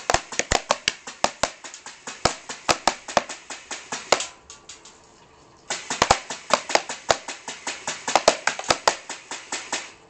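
Miniature see-through AUG airsoft gun firing rapid shots, sharp clicks at about eight a second, in two long strings with a pause of about a second and a half between them.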